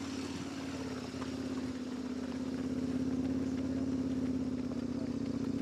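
A motor vehicle's engine running steadily at low speed, getting slightly louder, with a fast, even pulse to its hum.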